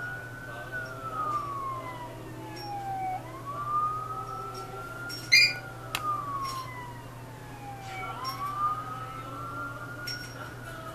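Siren wailing in slow rising and falling sweeps, about one sweep every five seconds. A brief sharp click about five seconds in is the loudest sound.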